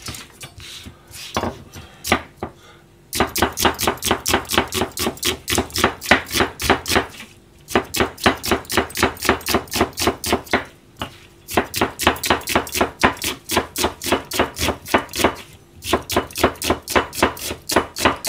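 Kitchen knife slicing onions on a plastic cutting board: a few scattered knocks, then rapid even knife strokes about five a second, in several runs with short pauses between them.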